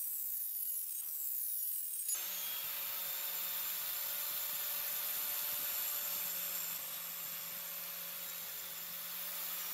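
An angle grinder's foam polishing pad hissing as it rubs across a steel dagger blade, then, after a sudden change about two seconds in, the grinder's motor running steadily with a low hum as a polishing wheel buffs the blade.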